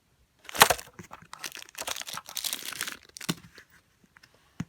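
LEGO vending machine mechanism being worked by hand: a sharp plastic clack, then a second or so of rattling, scraping plastic as the mechanism moves a peanut butter cup, followed by a couple of single clicks.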